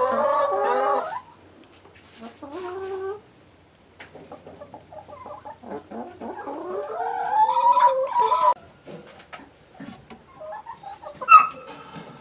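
ISA Brown hens clucking while they peck at scattered greens, with a longer call whose pitch bends upward near the middle, more calls near the end, and short pecking ticks between them.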